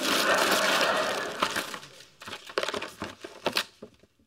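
Gift wrapping paper being torn and crumpled as a present is unwrapped. A dense rustle over the first second or so, then a run of separate crinkles that thin out and fade.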